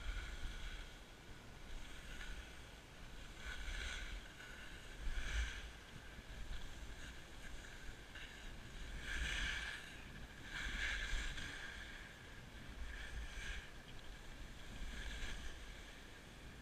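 Skis hissing and scraping over packed snow through a series of turns, the sound swelling every second or two, with wind rumbling on the microphone underneath.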